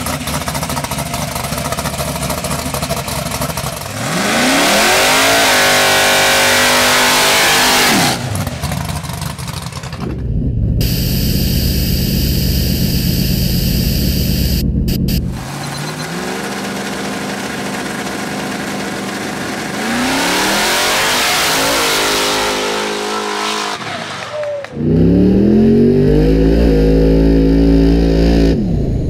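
A combustion race car's engine revving on the start line: the revs rise and fall twice, hold steady for a few seconds in between, then climb loudly to full throttle near the end as the car launches.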